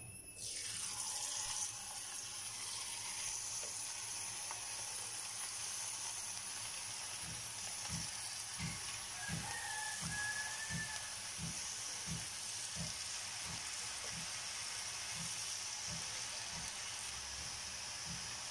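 Rice murukku dough frying in hot oil: a steady sizzle that starts about half a second in, as the pressed dough strands drop into the oil, and keeps on.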